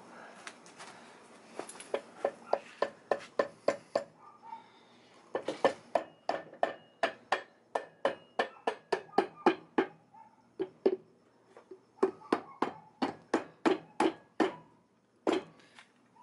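Mallet tapping the back cover of a Winters quick-change differential into place: sharp, evenly spaced knocks about three a second, in three runs with short pauses between.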